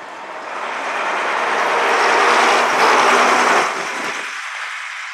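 Vintage double-decker bus engine driving past close by. It grows louder to a peak about three seconds in, then drops away abruptly about a second later.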